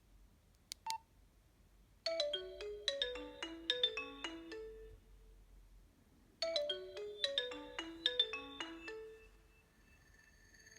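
A Nokia 112 mobile phone playing a ringtone: a short melodic phrase of stepped notes, played twice about four seconds apart. A brief click and beep come about a second in.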